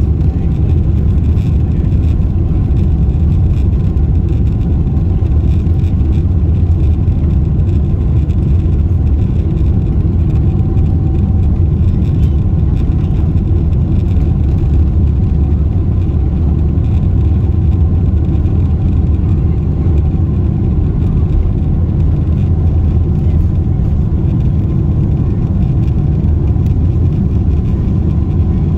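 Steady low rumble inside the cabin of a Boeing 747-8i airliner.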